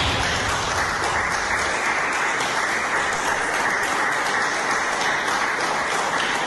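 A small group of people applauding, a steady, dense clapping that runs without a break.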